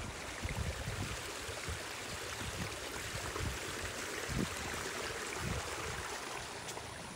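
Steady rushing noise, with low irregular buffets of wind on the microphone.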